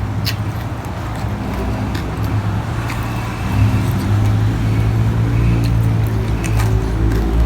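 A low engine-like hum that shifts slightly in pitch and grows a little louder partway through, with a few sharp light clicks over it.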